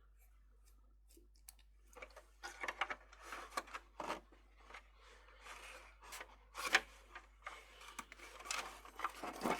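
Replacement power socket being pushed and worked into a tight hole in a keyboard's housing, with irregular scraping and clicking starting about two seconds in: a snug fit.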